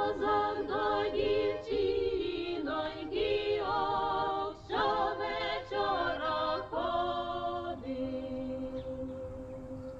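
A choir of voices singing without accompaniment, moving through short notes and then settling into long held chords near the end.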